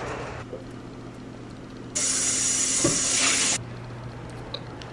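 A sudden burst of loud, even hissing noise about two seconds in, lasting about a second and a half and cutting off abruptly, over a low steady hum.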